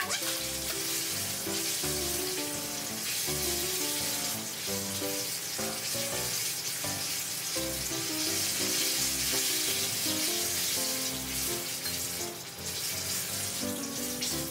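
Batter-coated bananas sizzling as they deep-fry in hot oil in a small pan, a steady crackling hiss. Background music with a beat plays underneath.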